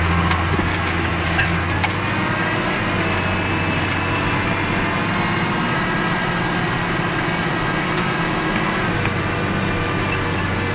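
John Deere 6530 tractor engine running steadily under load as it pulls a four-furrow reversible plough, a constant low drone with a few light clicks.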